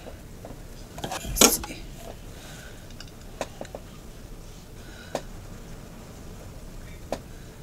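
A sharp metallic clatter about a second in as an ornate metal hand mirror is picked up, followed by a few faint, light clicks of handling.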